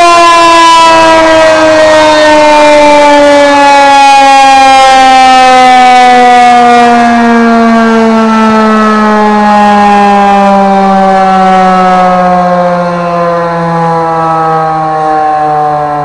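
Outdoor civil-defense warning siren sounding loudly and winding down, its pitch falling slowly and steadily throughout and its loudness easing off near the end.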